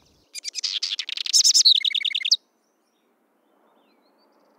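House wren (chercán) singing one rapid song about two seconds long, a quick jumble of high notes ending in a run of about six fast repeated notes.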